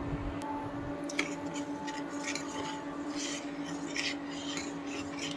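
A metal spoon stirring hot milk in a metal pot, with short repeated scrapes and swishes as the spoon moves through the milk and against the pan, over a steady low hum.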